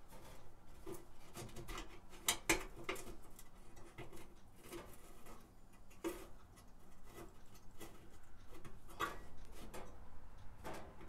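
Irregular small metal clicks and taps of screws and sheet-metal parts being handled and tightened on a Suburban RV furnace's burner assembly, the sharpest about two seconds in and again near six and nine seconds.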